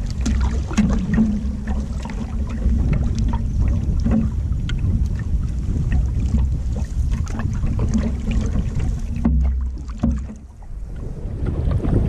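Wind buffeting the microphone of a camera on a canoe's bow as the canoe moves through choppy lake water, with many short splashes of small waves against the hull. The wind drops off briefly about ten seconds in, then picks up again.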